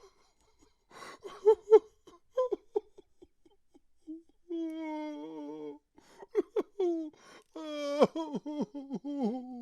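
A man crying: short, choked sobs, then a drawn-out wavering moan about halfway through, and a loud cry near the end that breaks into quavering, falling sobs.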